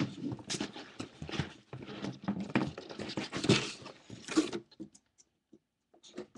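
Cardboard shipping box being handled and its flaps pulled open: a busy run of scraping, rustling and knocking of cardboard that stops about four and a half seconds in, followed by only a few small clicks.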